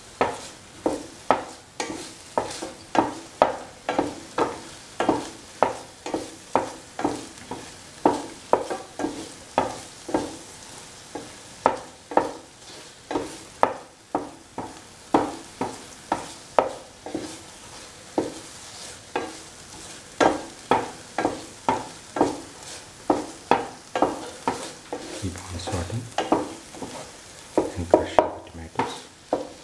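Metal spoon stirring and scraping a thick coconut-shallot masala around a nonstick pan, about two sharp strokes a second over a low sizzle of frying. This is the stage of sautéing the ground coconut paste with tomatoes and green chillies.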